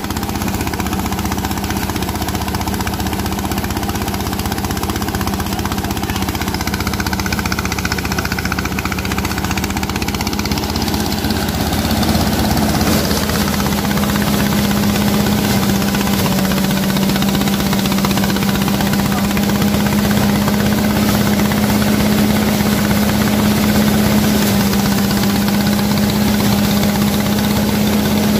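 Engine-driven rice threshing machine running steadily while threshing, a loud, even engine hum with the shaking of the thresher and its straw sieve. It gets louder about twelve seconds in.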